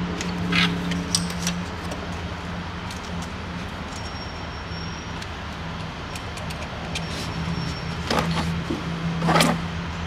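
Plastic air filter box and intake duct of a Ford 6.4L diesel pickup being worked loose and pulled out by hand: scattered clicks and rattles, then louder scraping and rustling near the end as the box comes free, over a steady low hum.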